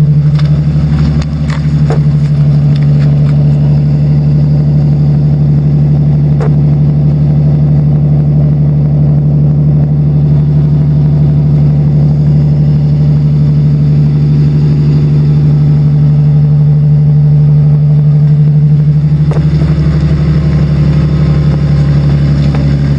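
Ford Mustang 4.0-litre V6 exhaust idling steadily through dual exhaust tips.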